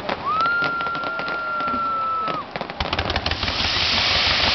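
Fireworks display: a long, steady high whistle lasting about two seconds, then a quick run of sharp cracks about three seconds in, giving way to a dense, continuous crackle as a close shower of sparks goes off.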